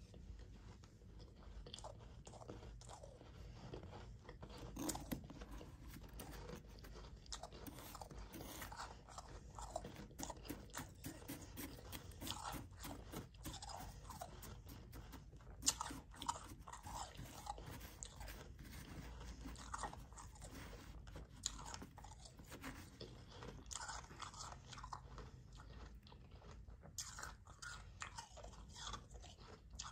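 Soft, powdery ice being scooped with a spoon and chewed: a steady run of small, crisp crunches, one sharper crunch a little past halfway.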